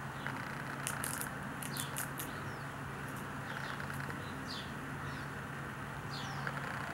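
Outdoor ambience: small birds give several short, falling, high chirps over a steady low background rumble and hum, with a quick run of sharp clicks about a second in.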